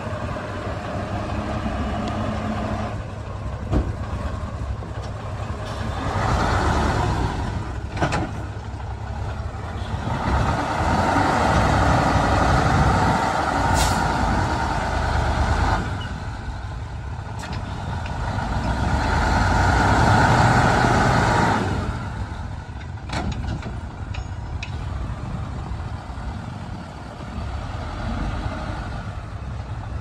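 Heavy diesel earthmoving machinery at work, a bulldozer and dump trucks, its engine noise swelling under load three times, with a few sharp knocks.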